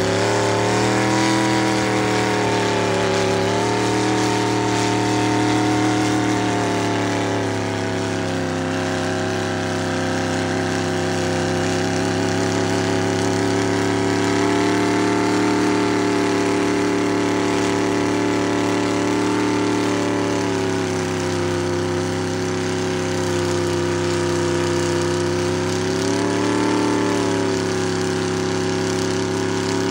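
Mud-racing pickup truck's engine running loud and steady through an upright exhaust stack, its revs swelling up briefly a few times as the truck sits stuck in the mud pit.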